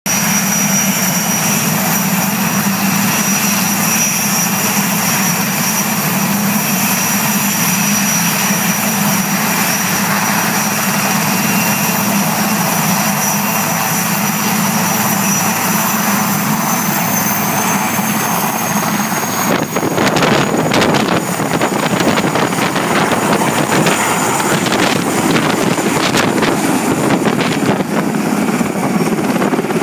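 Puma military helicopter's twin turboshaft engines and rotor running loudly, with a steady high turbine whine that rises slightly in pitch as power comes on. About two-thirds of the way through, the sound turns heavier and choppier as the helicopter lifts off and climbs away.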